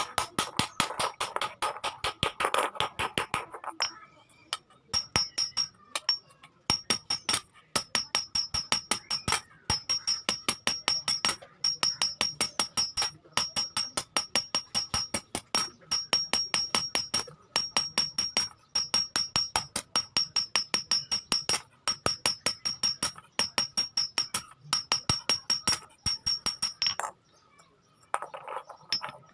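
Hand hammer striking iron on an anvil in quick runs of several blows a second, each blow leaving a high metallic ring. Brief pauses fall between the runs. Background music plays over the first few seconds.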